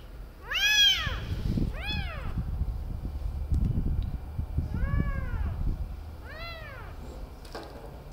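A kitten less than a month old meowing four times while held in a towel for eye treatment, each cry rising and then falling in pitch; the first cry is the loudest. A low rumbling noise runs under the second to fourth cries.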